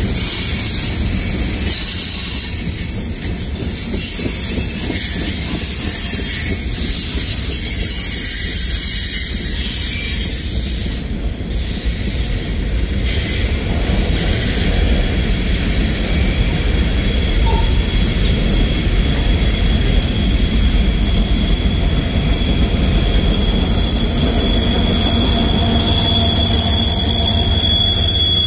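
Freight train cars (tank cars, boxcars and hopper cars) rolling past: a steady low rumble of steel wheels on rail, with a thin, high wheel squeal coming in about halfway and growing louder near the end.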